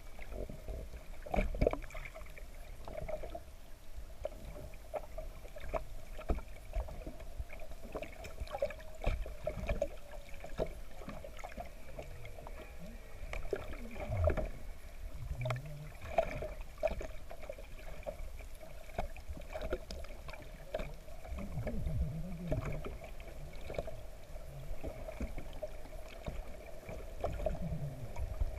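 Muffled underwater sound heard through an action camera's waterproof housing during a freedive: irregular low knocks and bumps over a steady hum.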